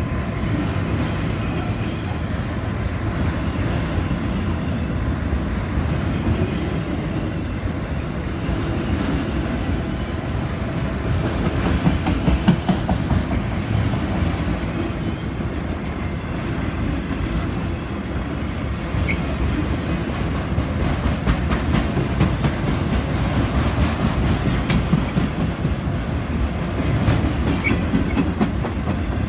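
Freight train of autorack cars rolling past: a steady rumble and rattle of wheels and car bodies, with clicking over rail joints and a couple of brief faint wheel squeaks.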